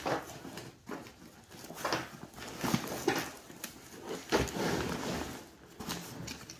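Nylon webbing and fabric of a plate carrier and backpack rustling and shifting as they are handled, with several sharp clicks and knocks from plastic buckles and hardware.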